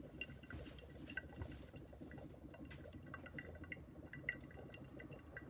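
Biogas bubbling out of a hose into a glass scrubber jar of liquid: faint, irregular small bubbling pops. It is the gas that built up while the valve at the tank was shut, now pushing through the scrubber.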